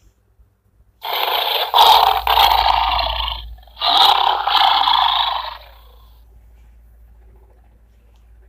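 A recorded tiger roar played from an animal sound board book's button panel: two long, rough roars, one after the other.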